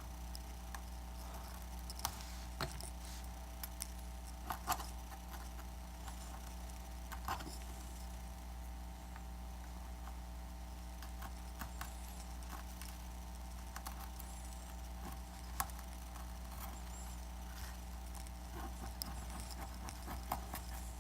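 Scattered light clicks and scrapes of hand tools picking broken glass and old adhesive off an iPad Air 2's frame, over a steady low hum.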